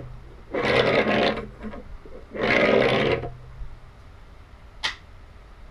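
Two short scraping or rubbing noises, each under a second and about two seconds apart, then a single sharp click near the end.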